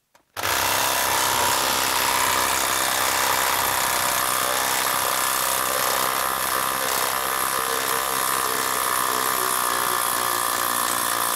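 Craftsman brushless impact driver hammering steadily in reverse through a socket, backing a long lag screw out of a wood round. It starts about half a second in and runs without stopping.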